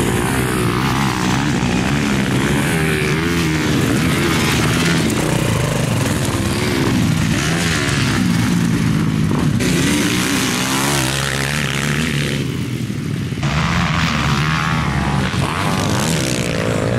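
Kawasaki KX450 dirt bike's four-stroke single-cylinder engine being ridden on a dirt track, revving up and down over and over as the rider works the throttle. The engine note falls away briefly about twelve seconds in, then picks up again.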